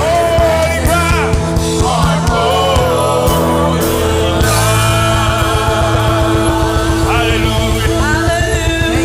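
Gospel worship music: a band plays held chords over a steady beat while a voice sings long notes that slide up and down.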